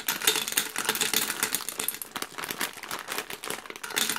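Peanut M&Ms poured from a bag into the glass globe of a gumball machine: a dense, irregular clatter of hard-shelled candies hitting the glass and each other.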